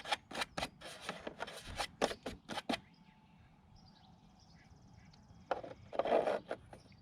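A quick series of short puffs of breath blowing grinding debris out of a freshly enlarged mounting hole, then a stronger puff about six seconds in.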